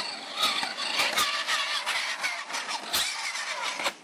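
Electric motor and geartrain of a converted Radio Shack Off Roader RC crawler running under throttle, its whine wavering in pitch, with a string of sharp clicks and clatter. It stops just before the end.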